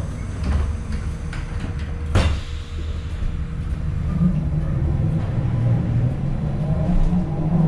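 Cabin ride noise of a New Flyer E40LFR electric trolleybus in motion: a steady low rumble with light rattles and one sharp knock about two seconds in. From about halfway a low hum comes up under the rumble.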